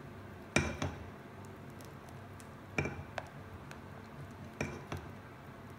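Silicone spatula stirring thick glutinous rice flour paste, cooked to a porridge-like thickness for kimchi sauce, in a small saucepan. The spatula knocks against the pot in three pairs of short knocks, about two seconds apart.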